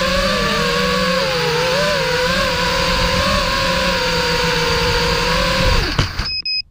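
Brushless motors and propellers of a 210-size FPV racing quadcopter whining, heard from its onboard GoPro, the pitch wavering with throttle. Near the end the whine drops in pitch and stops as the motors spool down, followed by a short run of high electronic beeps.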